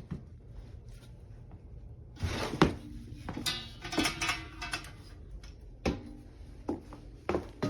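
Handling noises from the desk and its packaging: scattered knocks and thuds, with a busier stretch of clattering and scraping about two to five seconds in, the loudest thud near the start of it.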